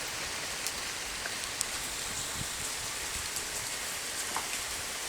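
Heavy rain pouring steadily onto the ground and a porch, an even hiss with faint patter of individual drops.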